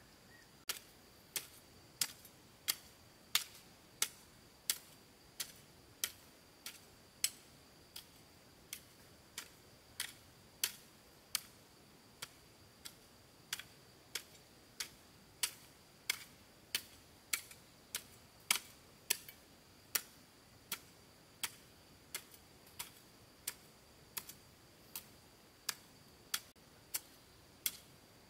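Regular sharp knocks, about three every two seconds, over a faint steady high-pitched tone.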